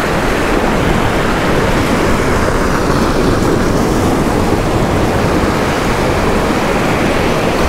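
Surf breaking and washing against the rocks of a jetty, a loud, steady rush of water.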